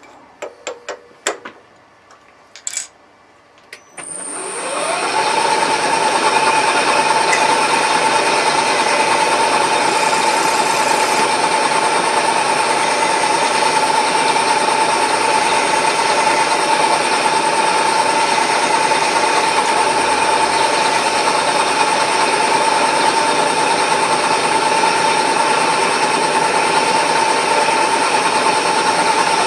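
A few clicks and knocks, then about four seconds in a workshop machine tool's motor starts, rising in pitch as it spins up, and settles into steady running with a strong whine and a high hiss.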